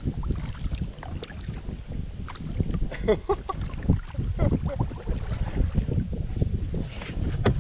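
Wind rumbling on the microphone, with water lapping against a kayak hull and scattered knocks and clicks.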